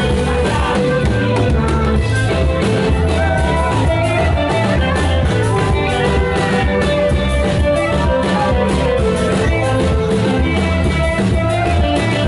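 Loud, amplified Comorian twarab music with a steady drum beat and melodic instruments.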